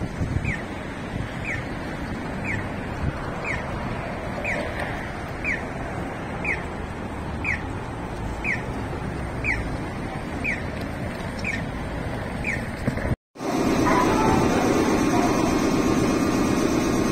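Audible signal of a Japanese pedestrian crossing chirping about once a second, each chirp a short falling electronic tweet, over steady city traffic noise. Near the end it cuts off and gives way to the louder steady hum of an underground station platform.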